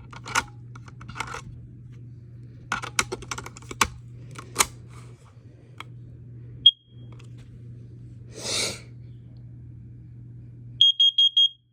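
Plastic clicks and knocks as an alarm is handled, a single short high chirp from its piezo horn about two-thirds of the way in, then four quick high-pitched beeps from the same horn near the end.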